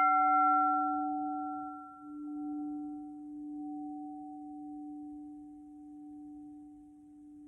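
Sound bowl ringing out after being struck: one steady low hum with a fainter higher overtone, the brighter upper tones dying away within the first couple of seconds. The ring fades slowly, wavering in loudness as it decays.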